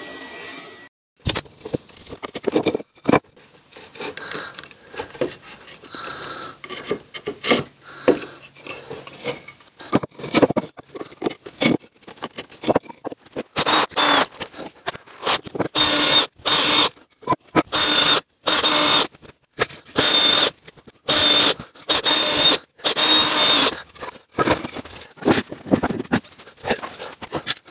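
Cordless drill running in about ten short bursts in the second half, pre-drilling holes and driving screws into wood, played sped up. Before that, scattered clicks and knocks of wood pieces and tools being handled.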